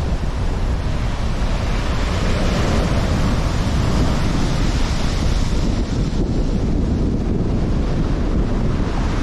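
Rough sea waves breaking and washing on the shore, mixed with heavy wind buffeting the microphone. The surf hiss swells in the middle and eases off again.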